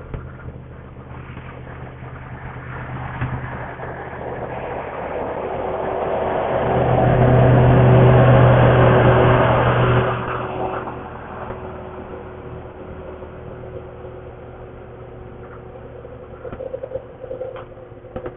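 Motorcycle riding, its engine humming steadily under road and wind noise. The sound swells from about four seconds in to a loud stretch, then drops off abruptly about ten seconds in.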